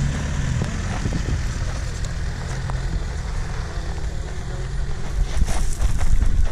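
Lada Niva's engine running as the 4x4 drives over a gravel track, its pitch easing down about a second in. Near the end a quick run of thumps and rustling gets louder over it.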